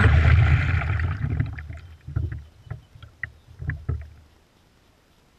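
Electric RC race boat coasting off the throttle: the rush of the hull through the water fades away over the first second or so, then water slaps against the hull about five times as it drops off plane and settles, and it goes quiet.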